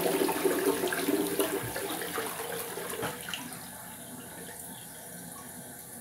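Toilet flushing: rushing water that fades over the first three seconds or so into a quieter steady hiss of water. The owner says this toilet is slow to flush.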